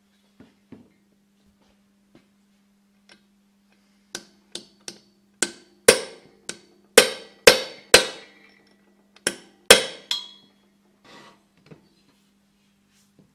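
A hammer striking the oil-free compressor's shaft about a dozen times in quick succession, sharp ringing metal-on-metal blows, trying to drive the main shaft out of its tight bearing, which does not free it.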